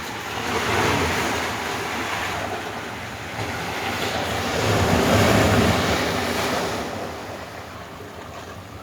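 Sea waves washing in on the shore, a rushing surge that builds about a second in, eases, swells again around five seconds and then ebbs away.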